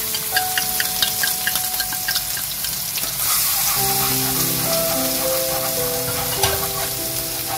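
Minced garlic and chopped chili frying in hot oil in a nonstick wok: a steady sizzle with many small crackling pops, stirred with a wooden spatula.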